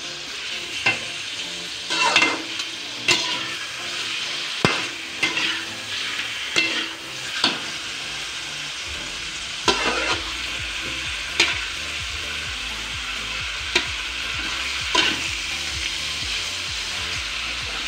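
Pork chop pieces sizzling with onion and garlic in a metal wok, stirred with a metal slotted spatula that scrapes and clacks against the pan every second or two.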